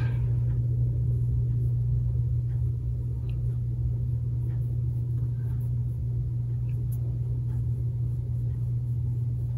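Steady low hum with rumble underneath, unchanging throughout.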